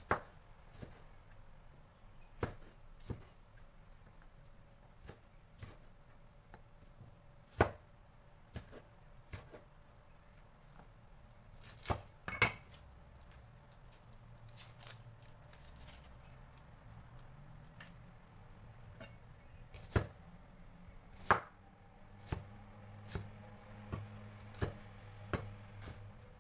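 Chinese cleaver chopping on a bamboo cutting board as tomato and shallot are cut. The chops are single, sharp knocks at irregular intervals, usually a second or more apart.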